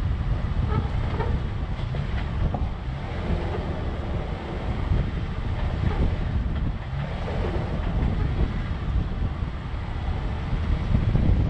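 4x4 vehicle driving on a dirt trail: a steady low rumble, with wind buffeting the microphone.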